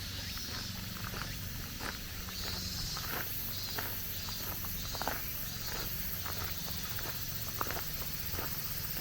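Walking footsteps on a rough forest road, about one or two a second. Cicadas keep up a shrill, pulsing chorus behind them.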